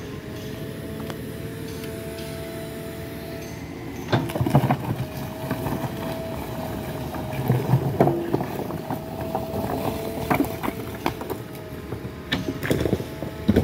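JCB 3DX backhoe loader's diesel engine running steadily, with clusters of clanks and knocks from about four seconds in as the backhoe bucket works the soil and stones.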